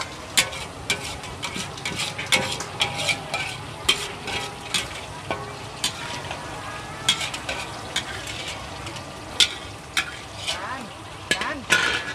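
Stir-frying in a large wok: a metal ladle scraping and clacking against the pan at an uneven pace while the food sizzles in hot oil.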